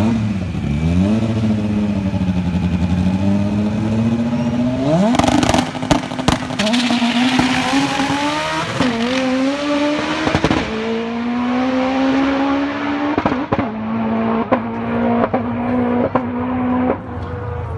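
Drag-racing car's engine at the starting line, rumbling and blipped, then launching at full throttle. Its note climbs steeply, drops twice at gear changes, and carries on as the car runs away down the strip, losing its high end. Sharp cracks come around the launch.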